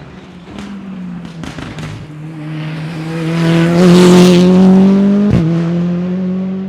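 Rally car engine at high revs approaching and passing close, loudest about four seconds in, with a few sharp cracks as it comes in. A brief crack and break in the engine note a little after five seconds marks a gear change, and then the note fades as it pulls away.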